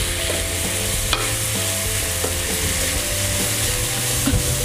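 Sliced cucumber and carrot sizzling in oil in a wok while a wooden spatula stirs them, a steady sizzle with a single sharp knock about a second in.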